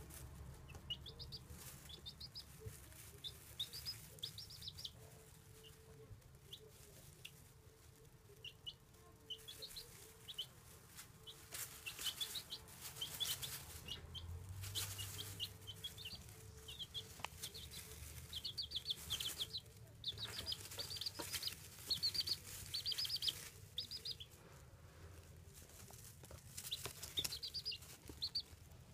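Baby chicks peeping: clusters of short, high-pitched cheeps in quick runs, busier and louder in the second half.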